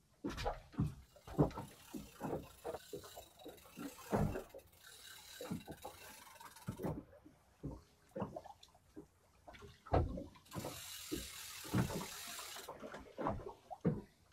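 Fishing reel being cranked to bring in a fish, its mechanism giving a run of irregular ratcheting clicks and knocks. Two stretches of hiss come in, the second louder, about five and eleven seconds in.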